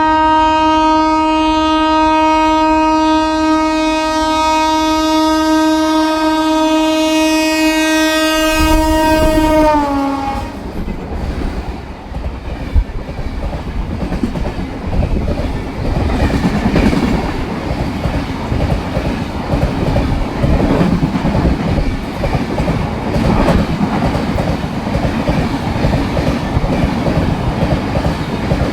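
WAP-7 electric locomotive's horn held in one long, steady blast for about ten seconds, its pitch dropping as the locomotive passes. Then the express runs through at speed without stopping, its wheels clattering over the rail joints as the coaches rush past.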